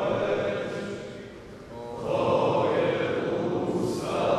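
A communion hymn sung by a group of voices in a church, in long held phrases with a short break about a second and a half in.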